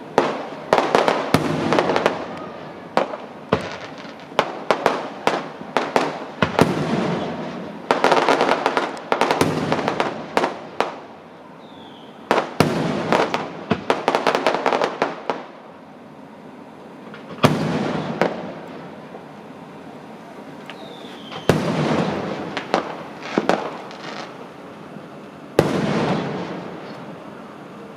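Fireworks going off: sharp bangs and crackling in quick clusters, each volley trailing off in an echoing rumble, with short lulls between.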